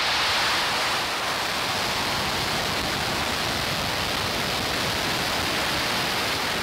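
SpaceX Falcon 9 rocket's nine first-stage Merlin engines at liftoff, a dense, steady rush of noise as the rocket climbs off the pad. It is a little louder in the first second, then holds level.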